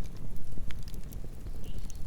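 Campfire burning: a steady low rumble of flames with scattered sharp crackles and pops from the burning wood.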